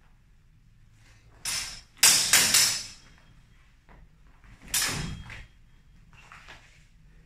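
Steel longsword blades clashing and scraping in a sparring exchange: a quick flurry of several blade strikes about two seconds in, then a second clash about five seconds in.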